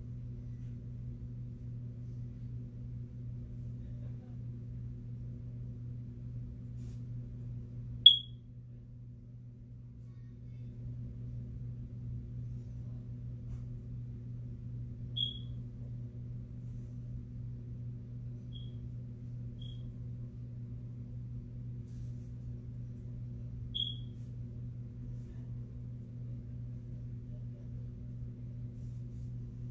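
Steady low electrical hum with a few short, high-pitched electronic beeps: a loud one about eight seconds in, then fainter ones spaced several seconds apart.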